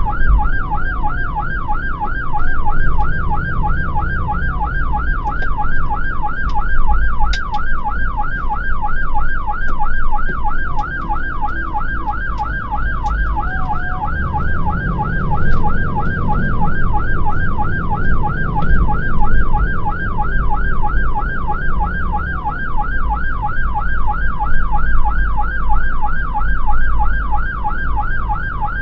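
Fire engine's siren on a fast yelp, its pitch sweeping up and down several times a second without a break. It is heard from inside the cab over the truck's engine and road rumble.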